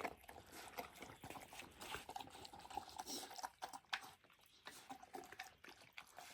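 Faint wet smacking and small scattered clicks of a meal being eaten.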